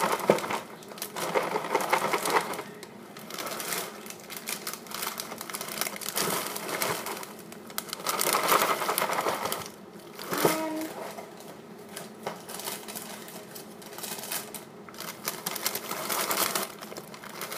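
Plastic cereal-box liner bag crinkling as it is handled, with Cinnamon Toast Crunch pieces rattling in it, coming and going in bursts of dry clicks.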